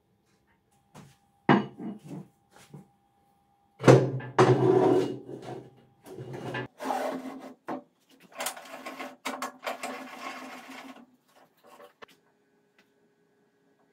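A rusty steel bar being handled and set into a metal-cutting band saw's vise. A knock comes about a second and a half in, and a louder clank just before four seconds. Scraping and rubbing of metal on metal follows for several seconds as the bar is slid into place and clamped.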